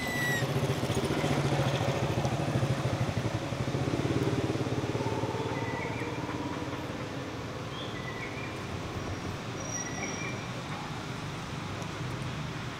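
A motor vehicle's engine running nearby, loudest in the first few seconds and then fading, with a few short high chirps over it.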